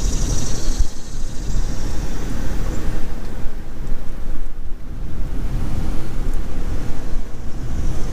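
Wind rumbling on the microphone over the road noise of a vehicle driving. The rumble is steady and loud throughout.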